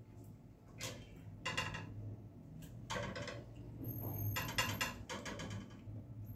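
About five short bursts of rapid grating clicks from something scraped or rattled against a hard surface, over a low steady hum.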